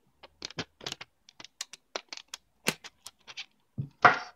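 Polyimide (Kapton) film tape crinkling between fingers in a string of short, irregular crackles. Near the end there is one louder scrape as a hand presses a strip of the tape down on the tabletop.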